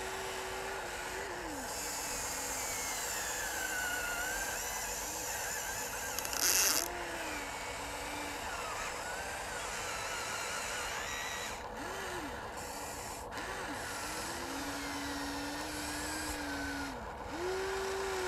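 Electric motors of a Huina RC excavator whining in short runs as the boom, arm and bucket move, each whine rising and falling in pitch. There is a brief loud rasp about six and a half seconds in.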